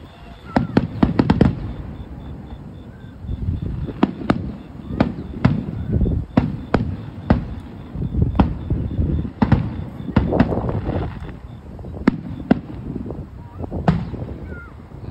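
Fireworks going off: a rapid string of sharp bangs about a second in, then bang after bang every half second to a second.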